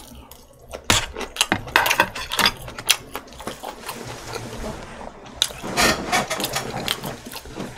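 Close-miked chewing of a mouthful of food, with irregular wet clicks and small crunches from the mouth.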